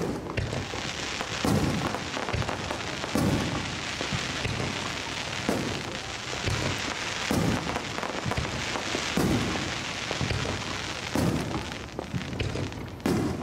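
Fireworks display: aerial shells bursting in about seven booms, roughly every two seconds, over a continuous dense crackle.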